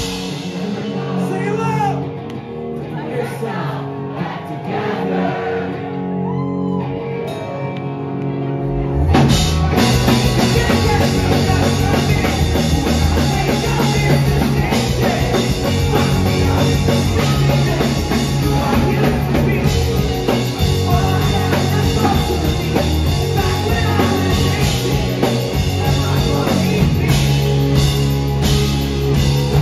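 Live pop-punk band playing a song in a concert hall, with singing over guitar. About nine seconds in, the drums and bass come back in and the full band plays on louder.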